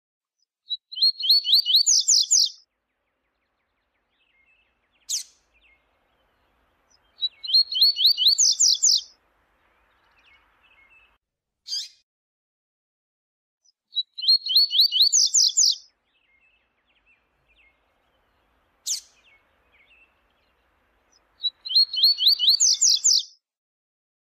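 Double-collared seedeater (coleiro) singing: four phrases of rapid, repeated high notes, each about two seconds long, with a single sharp call note between them.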